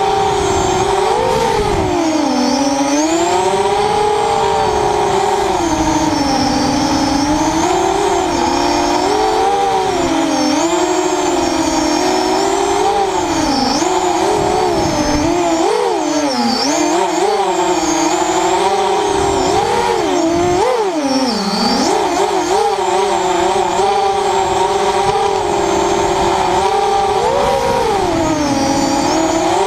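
ZMR 250 FPV racing quadcopter's four Tiger Motor 2206 2000 kV brushless motors spinning 6x4.5 propellers: a continuous buzzing whine that rises and falls in pitch with the throttle. Several sharper drops and climbs come around the middle.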